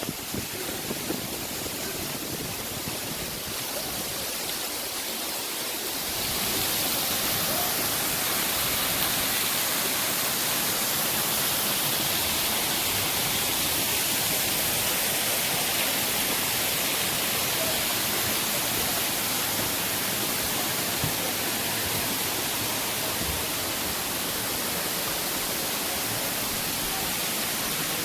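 Waterfall rushing: a steady hiss of falling water that grows louder about six seconds in.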